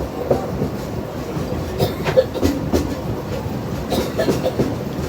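Train running along the track, its wheels clacking over the rail joints with a steady rumble.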